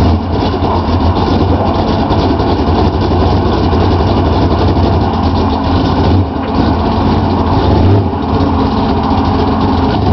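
A vehicle engine idling steadily, loud and low-pitched.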